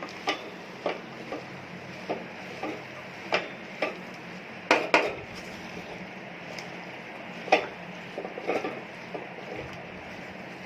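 A spoon knocking and clinking against a cooking pot at irregular intervals while stirring vegetable curry, a few knocks louder than the rest, over a steady low background noise.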